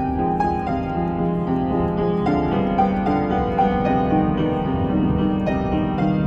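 Upright piano played by hand: a melody over sustained chords, with a low steady rumble underneath.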